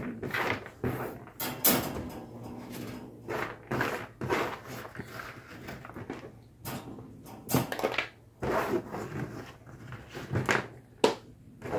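Irregular knocks, clatters and scrapes of things being handled and set down, as a cat's litter tray is put back together and moved into place.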